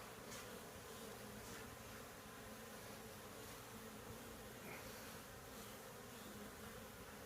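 Faint, steady buzzing of a mass of honey bees stirred up around their opened hive.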